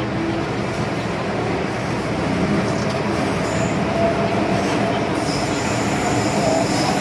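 MTR M-train electric multiple unit running through the Island Line tunnel: a steady rumble of wheels on rail with running noise from the car. A thin high wheel squeal comes in about five seconds in as the sound grows slightly louder.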